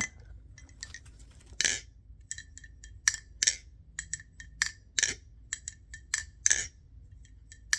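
A Nabalis Impulse balisong being flipped: a run of sharp, irregular metal clicks and clacks as the handles and blade swing and latch against each other, several of them loud with a brief metallic ring.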